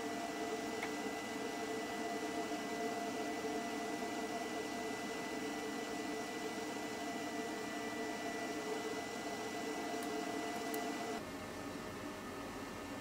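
Steady hum with several fixed tones and a thin high whine over a faint hiss, shifting abruptly about eleven seconds in, where the whine stops.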